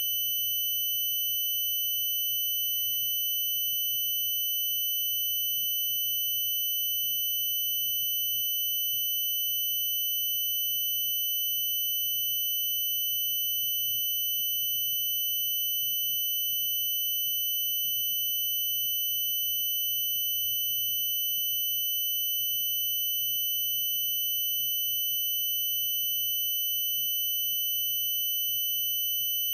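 A steady, high-pitched tone with fainter overtones above it, unbroken and unchanging in pitch.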